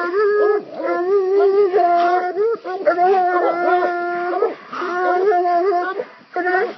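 Two coonhounds baying at a raccoon, their long drawn-out howls overlapping, with short breaks about four and a half and six seconds in.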